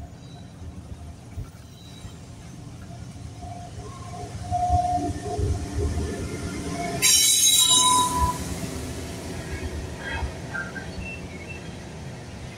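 Rumble of a passing vehicle that swells over several seconds, with a loud rushing hiss for about a second about seven seconds in and a few faint squealing tones.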